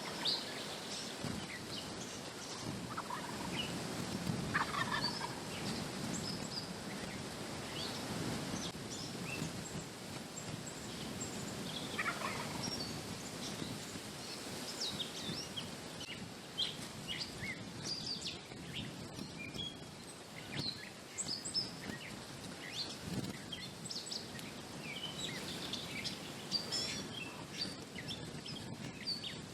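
Wild turkey gobbling a few times, with small birds chirping and a steady wind hiss underneath.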